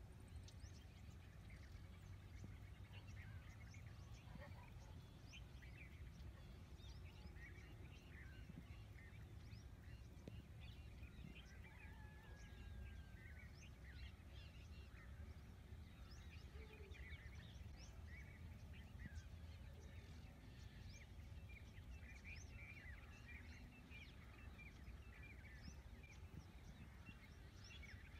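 Faint dawn chorus of many small birds: scattered short, high chirps and twitters throughout, with one longer whistled note about halfway, over a steady low outdoor rumble.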